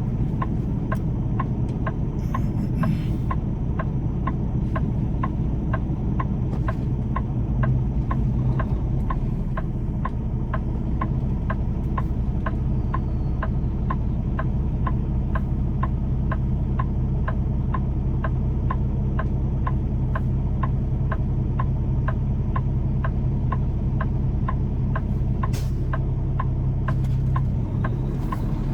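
Inside a semi-truck's cab: the diesel engine runs steadily, low and even, while the turn signal ticks in a steady rhythm, about two to three clicks a second.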